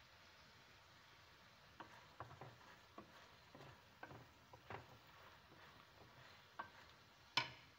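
Chicken breast strips frying gently in a pan over lowered heat, with a faint sizzle, while a wooden spatula stirs them, tapping and scraping against the pan a dozen or so times and knocking once more loudly near the end.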